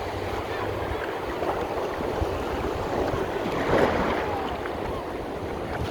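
Ocean surf washing around in shallow water, with a wave swelling and breaking about four seconds in; wind rumbles on the microphone underneath.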